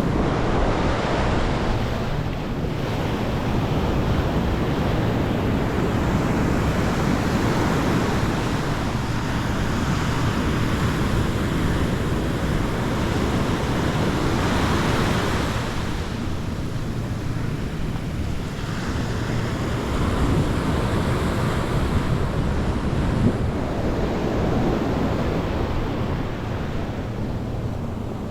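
Sea surf on a sandy beach: waves breaking and washing up the shore, swelling and easing every few seconds, with wind on the microphone.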